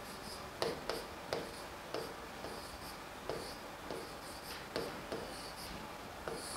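Chalk writing on a blackboard: irregular sharp taps as each stroke starts, with short scratches between them.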